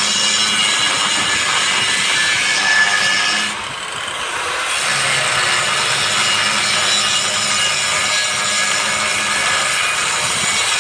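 Abrasive cut-off wheel cutting through steel stock: a loud, harsh, continuous screech over a steady motor whine. A little over three seconds in the screech drops away for about a second, then resumes.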